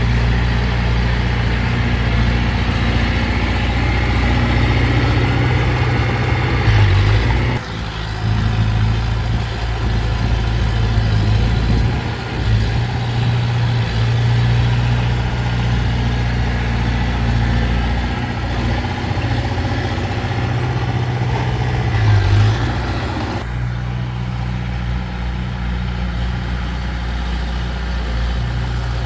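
Heavy diesel engine of earthmoving machinery running steadily with a deep, constant drone, briefly rising in pitch twice. The sound shifts abruptly twice, as if at cuts between shots.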